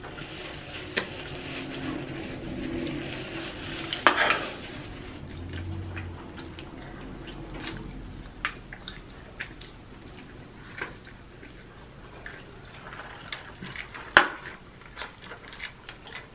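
Close-up eating sounds of fried chicken drumsticks: chewing and crunching of crispy skin with scattered small clicks and taps as pieces and bones are handled on plates, and a couple of louder crackles about four seconds in and near the end.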